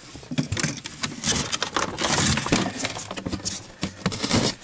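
Rummaging in a hard plastic ice-fishing box: tackle clattering and rattling with many sharp clicks, then the box lid shut.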